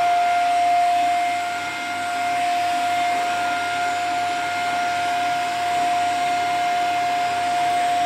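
Vacuum cleaner running steadily: a constant motor whine over a rush of air.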